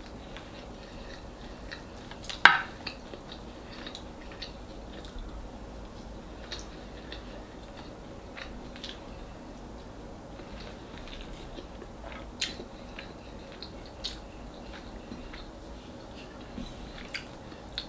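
Chewing and mouth sounds of someone eating fried fish and rice by hand, with scattered short clicks and smacks, the sharpest about two and a half seconds in.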